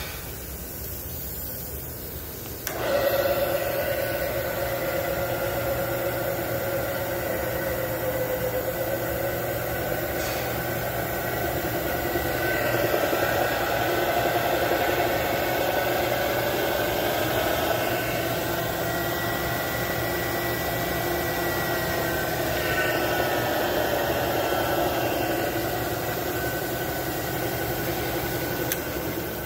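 Bridgeport 1.5 hp variable-speed vertical mill running with its spindle turning: a steady motor-and-drive whine that starts about three seconds in and stops near the end. Its pitch drifts up and down a few times along the way.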